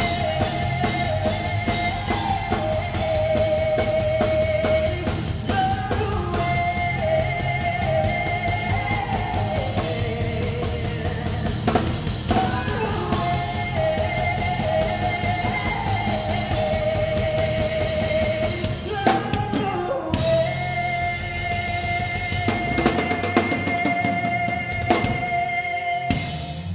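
Live band playing a song: a singer's held, wavering vocal lines over drum kit, keyboard and bass. The band stops together on a final hit at the very end.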